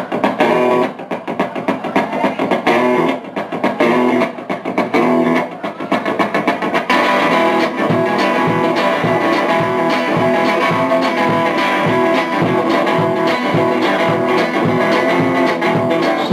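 Rock band instrumental intro: an electric guitar plays short, choppy chords with gaps between them, and about seven seconds in the rest of the band comes in for a full, continuous groove.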